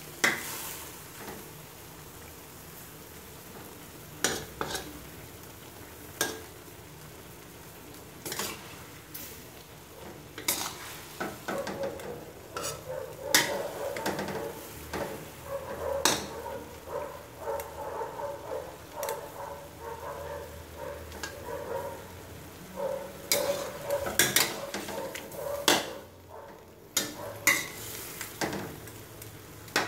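Bitter melon and egg sizzling in a metal wok, with a metal spatula scraping and clinking against the pan at irregular intervals as the food is stirred and turned.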